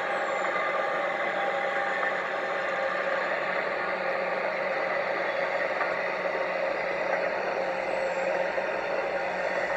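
A train going by: a steady, even rattle and rumble with a few held tones in it, unchanging in level throughout.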